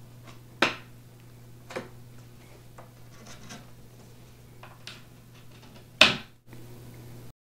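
Plastic pins being pushed into the holes of a particleboard drawer panel by hand, heard as a few scattered knocks and clicks with light rubbing of the wooden parts. The loudest knock comes about six seconds in, over a faint steady hum.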